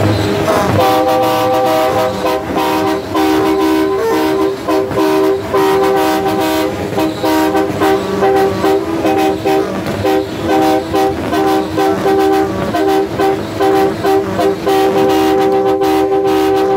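Truck air horns sounding a loud multi-note chord in a long run of blasts, some held for a few seconds and some cut short, with quick breaks between them.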